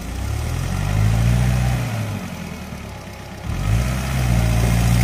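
Engine of a tracked rice-hauling cart run hard under load as it struggles up a muddy slope. It revs up, sags about two seconds in, then picks up again about three and a half seconds in: the cart is bogging down and can't make the climb.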